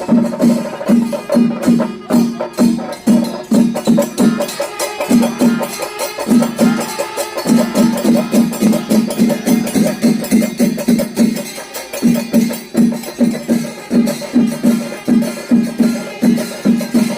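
Chenda melam, the Kerala temple ensemble of chenda drums and hand cymbals, playing a fast, dense rhythm over a steady low beat of about three strokes a second. The low beat drops out briefly twice, around the middle and about two-thirds through.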